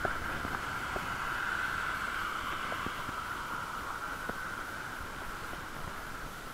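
Riding noise from a bicycle with a camera aboard: a steady hiss with scattered small clicks and rattles.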